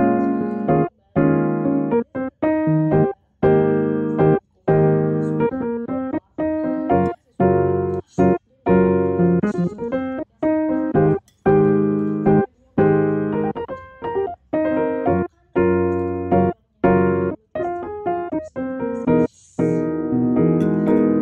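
Background piano music, a gentle melody over chords, cut by short moments of complete silence roughly every second.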